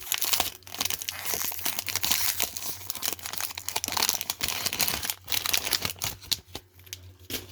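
Wax-paper wrapper of a baseball card pack crinkling and tearing as it is opened by hand, a dense crackle that thins out near the end.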